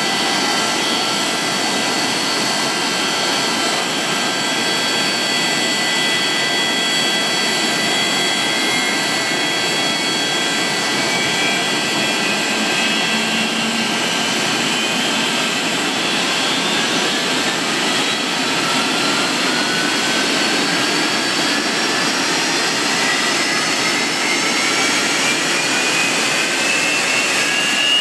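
Boeing 737-200's Pratt & Whitney JT8D turbofan engines running on the ground: a loud, steady jet rush with high whining tones over it. From about halfway through, a whine climbs steadily in pitch as the engines spool up.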